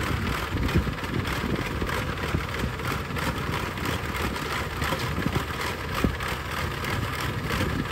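Kubota DC70 rice combine harvester running, a steady engine drone with a few sharp knocks, the clearest near the start and about three-quarters of the way through.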